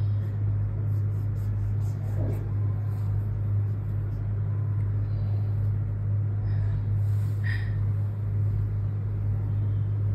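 A steady low hum, unchanging throughout, with a faint short vocal sound about two seconds in.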